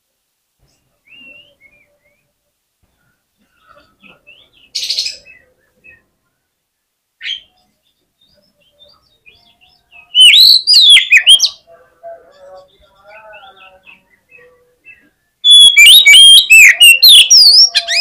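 Oriental magpie-robin in aggressive, fighting song: scattered soft chirps and a short harsh note, then two loud bursts of rapid, varied rising-and-falling notes, a short one about ten seconds in and a longer one near the end.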